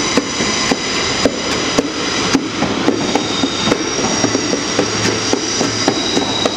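Passenger train pulling out of the station platform: a steady rumble with repeated sharp clicks, joined about three seconds in by high, steady whining tones.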